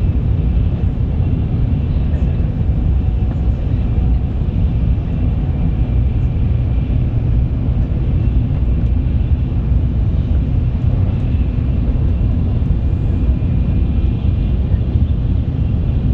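Shinkansen bullet train running: a steady, even low rumble with a faint high hum above it.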